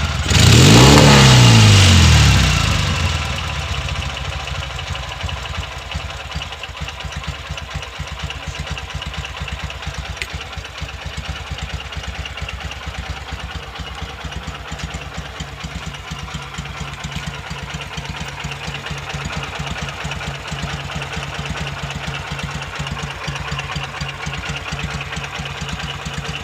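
M-72/K-750 motorcycle's side-valve flat-twin engine on K68 carburettors, freshly rebuilt and run in: a quick throttle blip near the start, then it drops back and idles steadily with an even beat.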